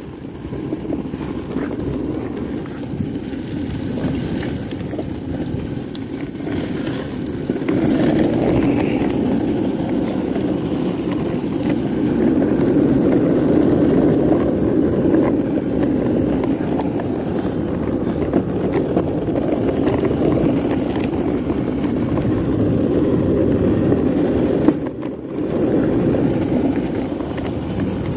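Meyer longboard's wheels rolling over cracked asphalt: a steady rumble that grows louder about eight seconds in, with a sharp knock and a brief drop near the end.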